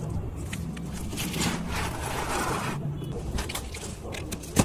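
Cardboard box being handled, rubbed and scraped as it is opened, with a few sharp clicks near the end while a utility knife is worked against it.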